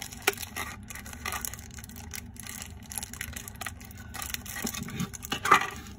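Small clear plastic bag crinkling and crackling as fingers handle it, in irregular crackles with a louder one about five and a half seconds in.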